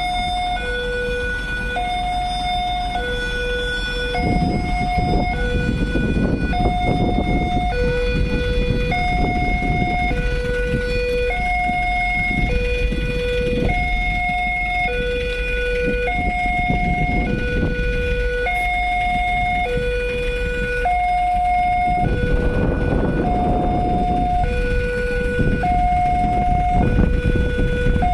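Railway level-crossing warning alarm sounding from the crossing signal's loudspeaker: an electronic two-tone call, a higher and a lower tone of about a second each alternating steadily. A low background rumble runs underneath.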